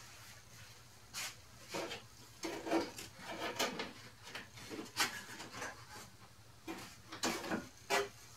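Irregular knocks, clunks and scrapes of tools being picked up and set down on a plywood cabinet counter, with the loudest knocks about three, five and eight seconds in.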